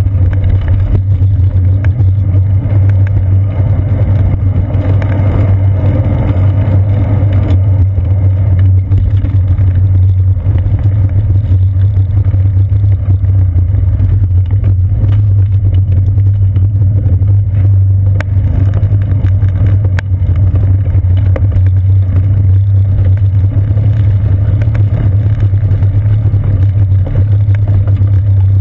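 Loud, steady low rumble of a bicycle in motion: wind and ride vibration picked up by a GoPro camera in its housing mounted on the seat post, with a few faint clicks.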